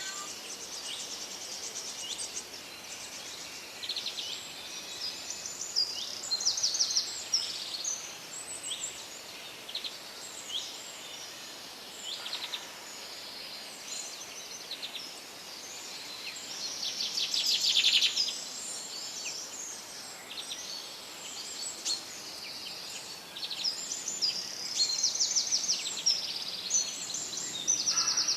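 Several songbirds singing and calling over one another in a steady chorus of chirps and short rapid trills, over a faint hiss. One louder trill comes about two-thirds of the way through.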